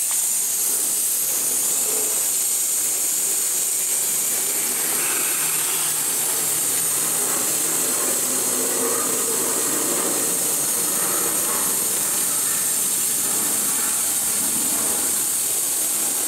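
Vacuum brake bleeder running with a steady high hiss as it sucks brake fluid out through the open bleed valve of a front brake caliper.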